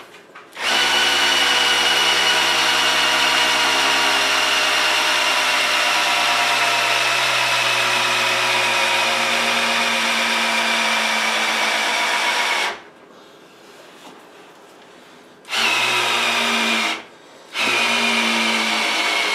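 Corded electric drill spinning an oil-pump priming tool to prime a newly installed oil pump in a small block Chevy 350. The drill runs with a steady motor whine that slowly drops in pitch. About two-thirds through it stops for about three seconds, runs briefly, pauses again for a moment, then runs on.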